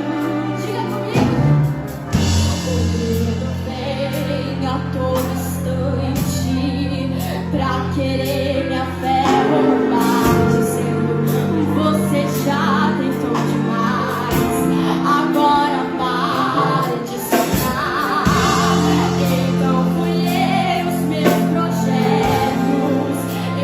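Gospel worship music: a woman singing over a band, with a choir of backing voices.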